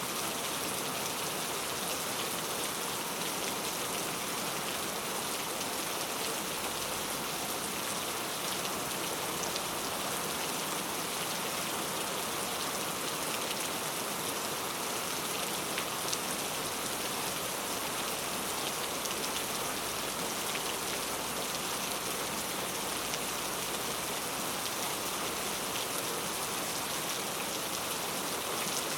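Steady rainfall: an even hiss of rain with scattered individual drops pattering on a surface.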